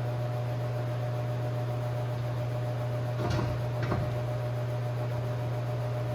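A steady low hum, with two short knocks about half a second apart a little past the middle.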